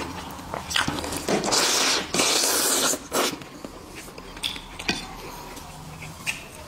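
A man slurping noodles: two long noisy slurps about a second and a half in, between small clicks of chewing and chopsticks, then quieter chewing.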